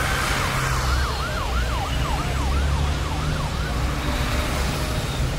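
Emergency vehicle siren: a held wail that breaks into a fast yelp, rising and falling about three times a second, then fades out about three and a half seconds in, over a steady low rumble.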